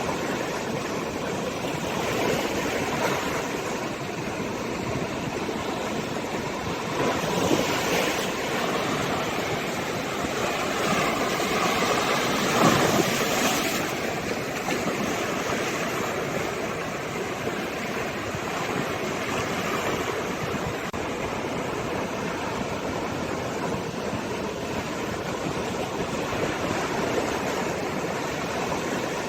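Sea waves washing ashore in a steady rush, swelling louder about seven seconds in and again around twelve to thirteen seconds in.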